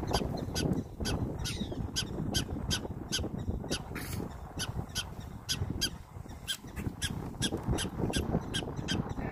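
Prairie dogs in a colony calling: short, sharp chirps repeated about three times a second.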